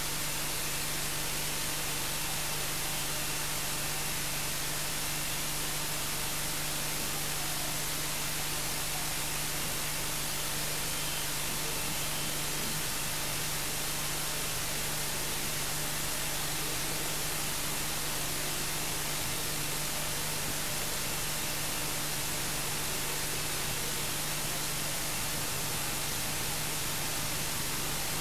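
Steady hiss of recording noise with a low electrical hum under it, unchanging throughout; no other sound stands out.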